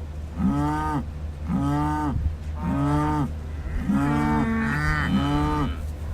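Cattle mooing in short, evenly repeated calls about once a second, two calls overlapping a little past the middle, over a steady low hum.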